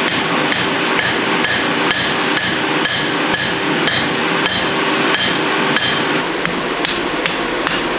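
Hammer blows, about two a second, forge-welding a white-hot steel block onto the body of an anvil being built up. Each blow gives a short metallic ring, over a steady rushing noise.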